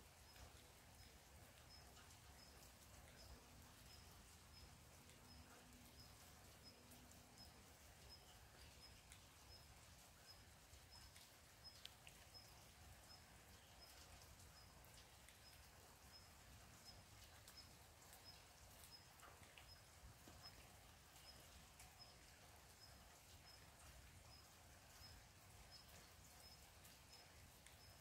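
Near silence in a forest: a faint, high chirp repeating steadily about twice a second, with a few faint ticks.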